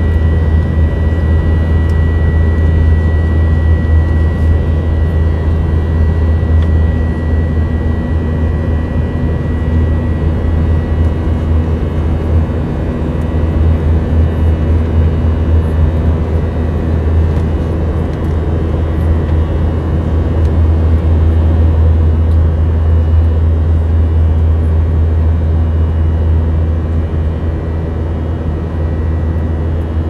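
Steady cabin noise of a jet airliner in flight, heard inside the cabin: a loud, deep drone of engines and airflow. A thin high tone fades out about a third of the way in.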